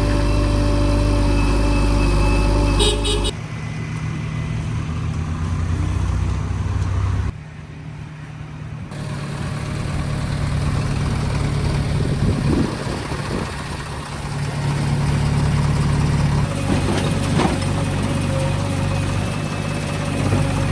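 Diesel engines of heavy machinery running. The sound changes abruptly a few times, as the engine note and loudness shift.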